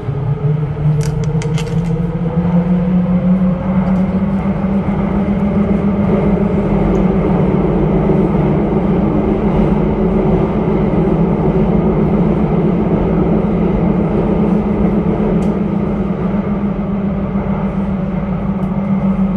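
Copenhagen Metro train running through a tunnel, heard from inside the car: a steady rumble of wheels on rail under a motor hum. The hum rises in pitch over the first few seconds as the train picks up speed, then holds steady. A few light clicks come about a second in.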